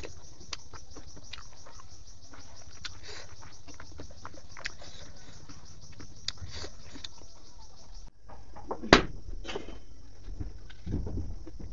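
Close-miked eating sounds of rice and pork intestines being chewed by hand-fed mouthfuls: many small wet clicks and smacks. There is one louder, sharp smack about nine seconds in.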